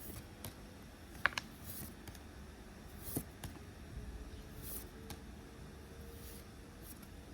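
Pokémon trading cards being handled, faint: soft brief swishes of cards sliding past one another, with a few light clicks and taps, the sharpest about a second in and again about three seconds in.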